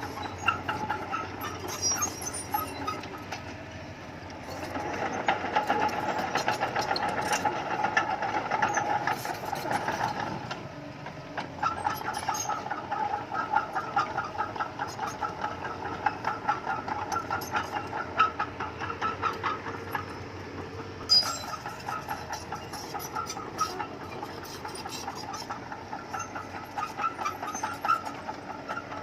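Bulldozer working: rapid, rhythmic metallic clanking of its steel crawler tracks over the diesel engine. It eases off briefly around ten seconds in and again near twenty, with one sharp clank just after.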